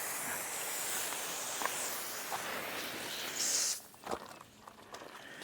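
Water from a hose spraying onto a freshly sawn black walnut slab to wash sand off it, a steady hiss that swells briefly and then cuts off about four seconds in, leaving a few faint clicks.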